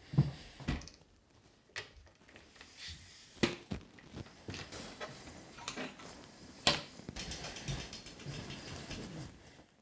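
Scattered knocks and clicks from a road bike being handled, with a run of rapid ratchet-like clicking in the second half.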